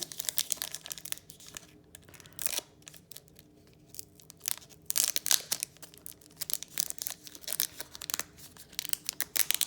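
Foil Pokémon booster pack wrapper being torn open and crinkled by hand: a run of sharp crackles and rips, some of them loud. The pack doesn't tear open cleanly.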